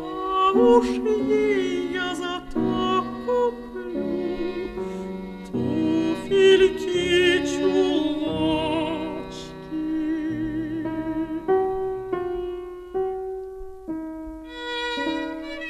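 A Norwegian lullaby played from a Soviet vinyl record: a classical-style arrangement with bowed strings and piano under a melody with strong vibrato. Near the end a higher violin line comes in.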